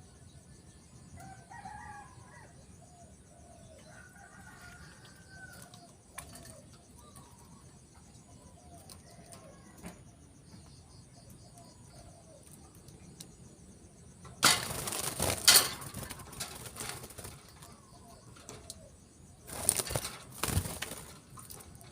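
Caged canary fluttering its wings in two loud bouts, one about two-thirds of the way in and a shorter one near the end. Faint bird calls run underneath in the first half.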